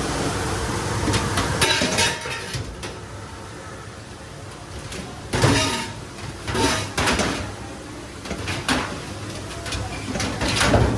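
Metal pots and pans clanking against each other as they are handled, in irregular knocks, some ringing briefly.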